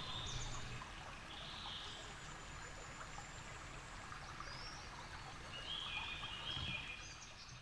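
Faint trickle of a small, shallow woodland stream, with a few short bird calls over it. The sound fades out near the end.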